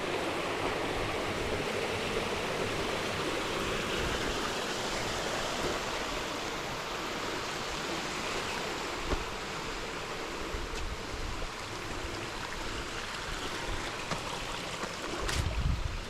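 Steady rushing water of a waterfall stream, easing a little about halfway through, with a brief thump near the end.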